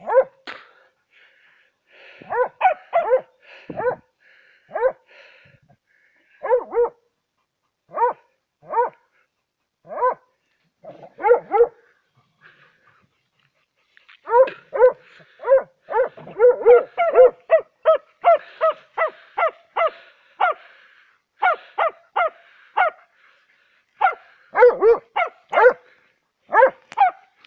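Dogs barking at a badger they are working: short, sharp barks in irregular runs. After a brief pause about halfway through, the barking comes thick and fast.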